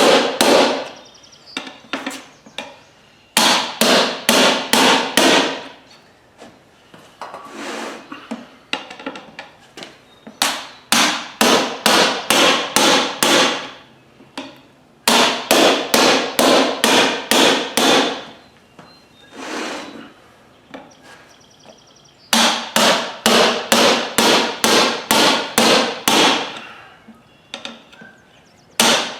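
Hammer blows on the striking cap of an angled pry bar driven in against a golf cart tire's bead at the rim, in quick runs of sharp, ringing strikes with pauses between: breaking the bead loose.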